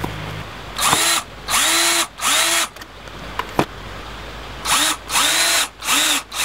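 Power drill whirring in short trigger bursts as it drives screws into a wooden board. The motor speeds up and winds down with each burst: three about a second in, then four more near the end.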